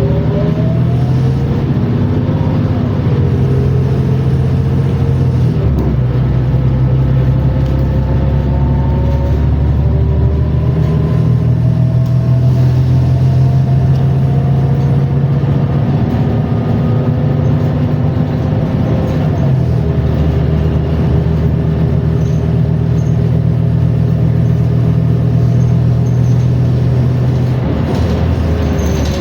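New Flyer XN60 articulated CNG bus driving, its drivetrain running with a steady low drone. Over it is a whine that climbs slowly in pitch as the bus gathers speed: the odd transmission sound the bus is known for. The drone changes note a couple of times.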